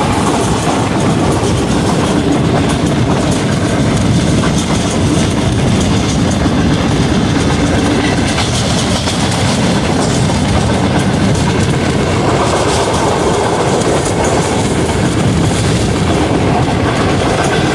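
Pakistan Railways Rail Car train running at speed: a loud, steady rumble and rattle of the wheels on the track with a rush of air along the carriage side.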